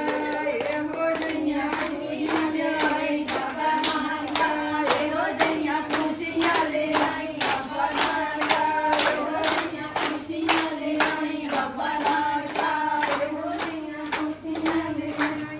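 Steady rhythmic hand clapping by a group, a little under three claps a second, keeping time under a sustained sung Punjabi folk melody.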